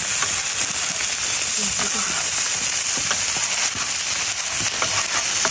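Slices of marbled wagyu beef sizzling on a hot steel flat-top griddle, a steady hiss with scattered crackles and pops from the fat and the wood fire.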